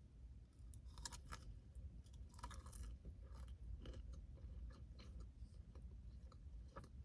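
Faint close-miked chewing of food, with scattered short, wet mouth clicks and a slightly longer burst about two and a half seconds in, over a low steady hum.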